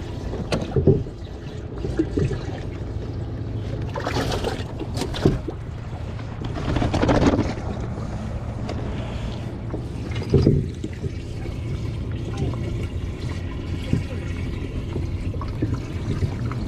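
Bass boat's motor running at a steady low idle hum, with a few louder swells of noise and knocks over it about four, seven and ten seconds in.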